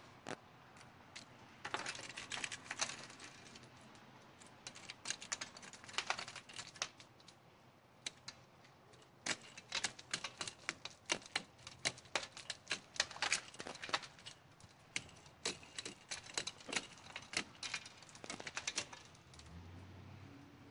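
Icicles on a vehicle's grille guard snapping off and clinking as a hand knocks them loose: irregular clusters of sharp clicks and ticks.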